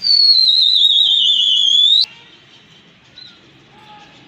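A loud, warbling whistle lasting about two seconds, sliding down in pitch and then sweeping sharply up before it cuts off suddenly.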